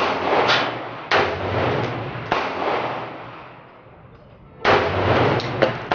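Gunshots at an outdoor shooting range: four shots a second or two apart, each with a long echoing decay, then a few quicker, sharper cracks near the end.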